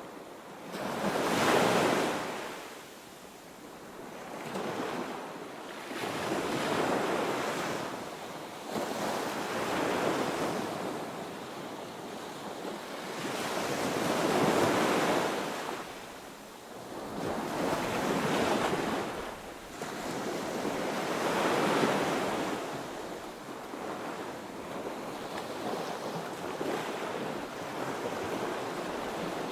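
Ocean waves breaking and washing onto a beach, the surf swelling and fading in repeated surges a few seconds apart, with wind on the microphone.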